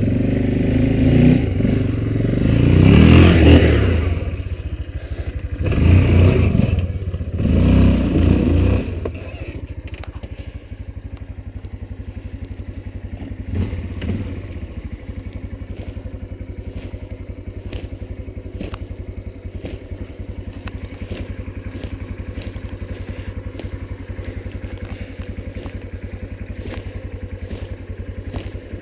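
Yamaha Kodiak ATV's single-cylinder four-stroke engine revving in several swelling bursts as it crawls through brush, then settling to a steady, quieter low-speed putter about nine seconds in.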